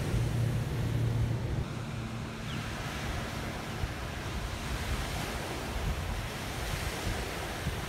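Wind buffeting the microphone over boat wake washing on the water, with a steady low boat-engine hum that fades out about two seconds in.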